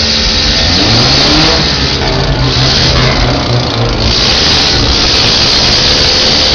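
A vehicle engine revving, rising in pitch about a second in and holding a higher speed for a few seconds, over loud noise.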